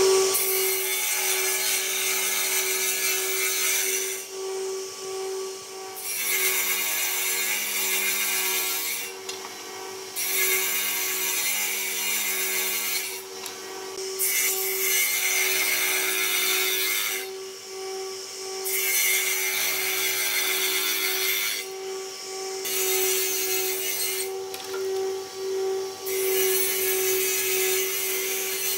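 Table saw running steadily while its blade cuts across a row of wooden slats, making a series of shallow cross-cuts. There are about seven cutting passes of a few seconds each, each one louder and hissing, with the motor humming alone between them.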